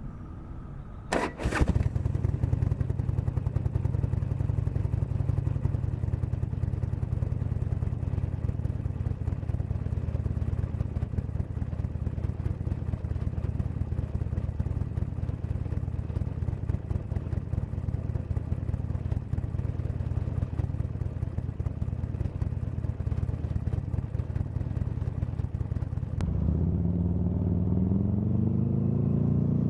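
Buell XB V-twin with a Dean Adams RT-XB-1 exhaust starting up about a second in, then idling steadily with an even exhaust pulse. Near the end the engine is revved, its pitch rising and falling.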